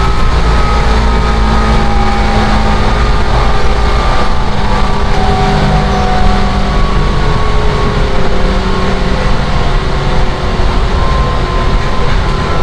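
Seibu 10000 series Red Arrow limited-express train running at speed, heard inside the passenger car: a loud, steady rumble with a few faint steady whining tones above it.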